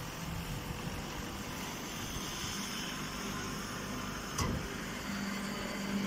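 Hydraulic alfalfa baler running with a steady mechanical hum. There is a single knock about four seconds in, and a steadier low hum sets in just after.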